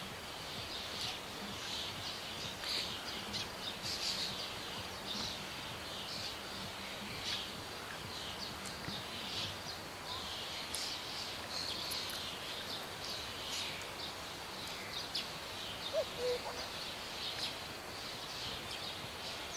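Birds chirping and singing across an open field: many short, high calls scattered throughout over a steady hiss.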